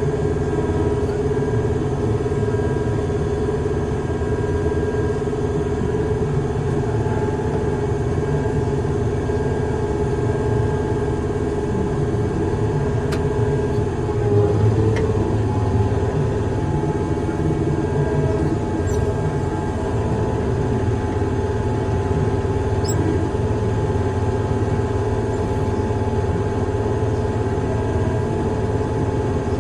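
Heavy construction machine's engine running steadily with a low rumble, briefly growing louder about halfway through.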